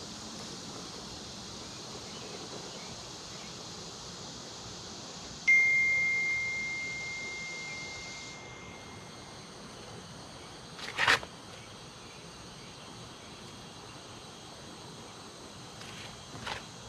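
Steady high-pitched evening insect chorus. About five seconds in, a single clear ringing tone starts suddenly and fades away over about three seconds, and a short sharp hiss-like burst comes about six seconds after that.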